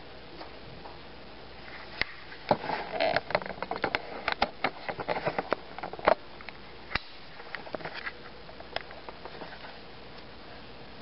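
1929 Underwood No. 5 manual typewriter being typed on: a quick run of key strikes clacking for about four seconds, then a few scattered clicks.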